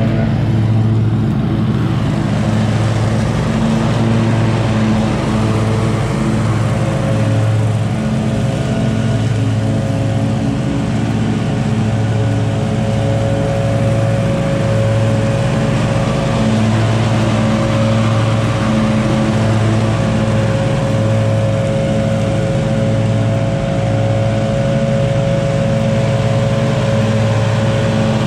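Engine of a Scag V-Ride stand-on mower running steadily at working speed while it pushes leaves, with no change in pitch or level.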